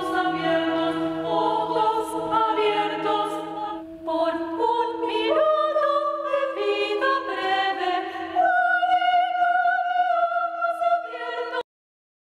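Mixed-voice chamber choir singing a cappella in several parts, with sustained, shifting chords over one note held underneath. The singing cuts off abruptly near the end.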